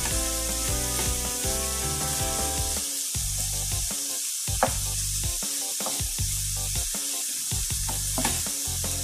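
Shredded cabbage and onion sizzling as they are stir-fried in a nonstick frying pan, with a wooden spatula now and then ticking against the pan. Background music with a bass beat plays underneath.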